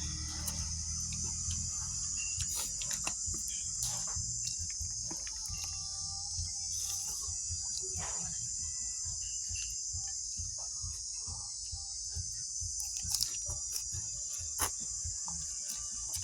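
Insects, crickets by the sound of it, trilling steadily at a high pitch, with scattered sharp clicks and a low background hum.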